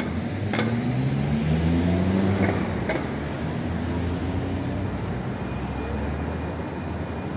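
A motor vehicle's engine accelerating, its pitch rising over a few seconds over a steady low rumble of traffic, with a few sharp clicks in the first three seconds.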